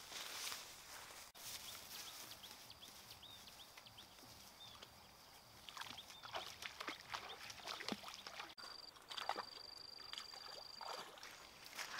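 Faint outdoor sound of someone wading into shallow river water, with sloshing and splashing steps, among short high bird chirps. A steady high-pitched buzz sounds for about two seconds near the end.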